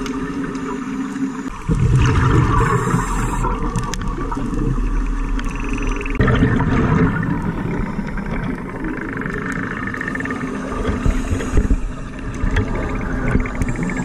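Underwater sound of scuba diving: divers' exhaled regulator bubbles rumbling and gurgling, with a low steady hum beneath. The character changes abruptly a few times, at edit cuts between shots.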